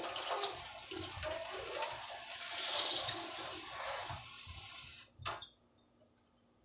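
Water running from a tap into a container, stopping about five seconds in, followed by a short knock.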